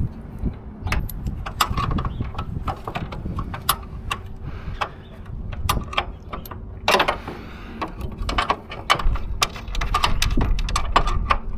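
Irregular clicks, knocks and clinks of hand tools and metal parts being handled and fitted, over a low rumble, with a short rushing scrape about seven seconds in.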